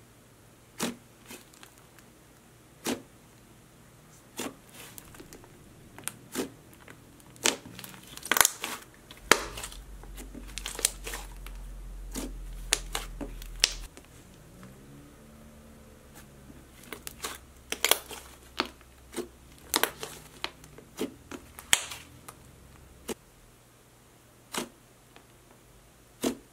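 Soft clay slime, made of white glue, foaming hand wash, lotion and Daiso clay, being pressed and poked with the fingers. It gives irregular small clicks and pops, about one a second.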